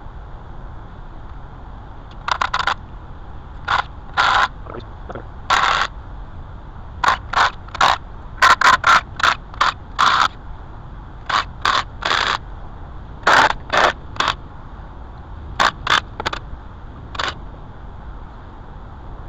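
A series of about two dozen short, irregular scraping strokes in quick clusters, set over a steady low background hum.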